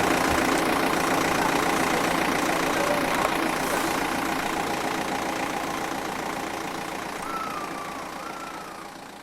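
Engine idling steadily with faint voices in the background, the whole sound slowly fading out.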